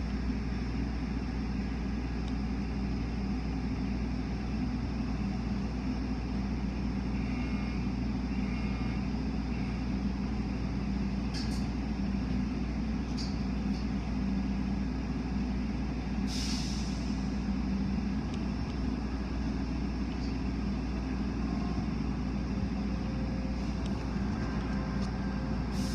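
Tunnel car wash equipment running, heard through a glass window: a steady hum and rush of machinery and spraying water, with a short hiss about sixteen seconds in.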